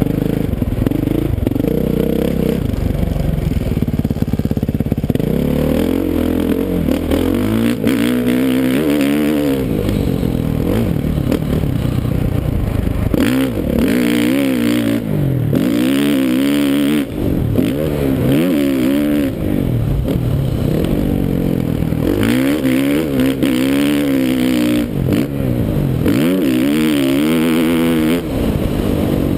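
2013 Suzuki RM-Z450's single-cylinder four-stroke engine revving up and backing off again and again as the dirt bike is ridden around a motocross track. Its pitch climbs and drops every few seconds.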